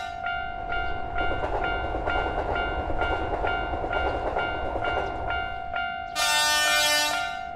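Japanese level-crossing warning bell clanging about twice a second over the rumble of a passing train. Near the end comes one loud train horn blast, about a second long.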